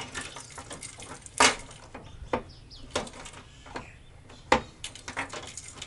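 Sharp clicks and knocks from the rear door handle and lock of a Toyota Land Cruiser 105 being tried again and again, the loudest about a second and a half in and again about four and a half seconds in. The door stays shut, an electrical glitch that keeps the back from opening from outside.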